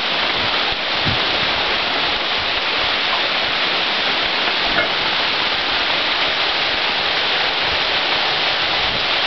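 Steady rain falling, an even dense hiss with no let-up.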